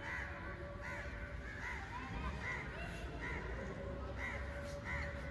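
Birds calling repeatedly: short, arched calls about one every second or less, over a steady low rumble.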